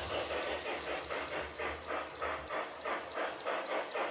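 Lionel 726 Berkshire O-gauge model steam locomotive running on three-rail tubular track, its onboard sound system playing an even steam chuff of about three to four beats a second. Under it a low rumble of the wheels and motor fades about halfway through as the train moves away.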